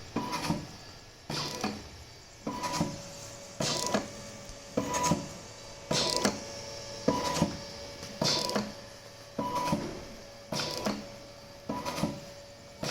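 Low-cost mechanical ventilator running in a steady breathing cycle: its motor-driven mechanism makes a stroke with a short whine and clicks a little more than once a second.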